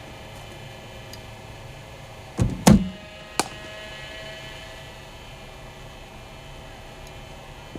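A bowling machine fires a cricket ball with a low double thump. About two-thirds of a second later comes the sharp crack of the ball meeting the bat. A steady mains hum runs underneath.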